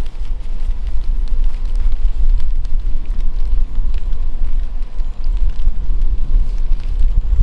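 Wind buffeting the microphone: a loud, steady low rumble, with scattered faint ticks over it.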